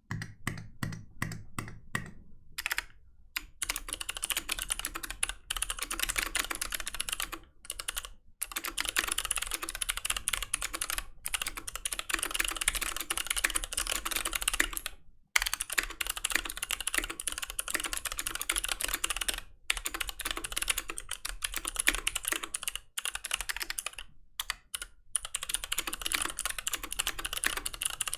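Fast typing on a Fox Orange80 (Pizza80) custom mechanical keyboard: a few separate key presses at first, then a dense, continuous clatter of keystrokes broken by short pauses every few seconds.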